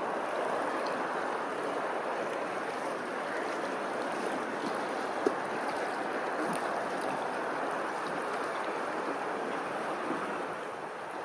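Steady rush of running water, with a single sharp click about five seconds in.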